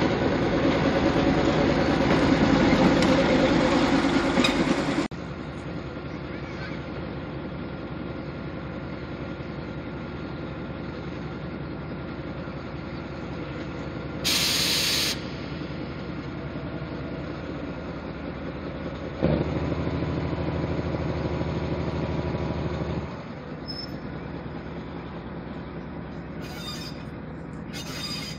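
Lxd2 narrow-gauge diesel-hydraulic locomotive's engine running loudly as it passes close, then fainter and steady as it draws away along the track. A hiss of about a second comes near the middle, and the engine is louder again for a few seconds after it.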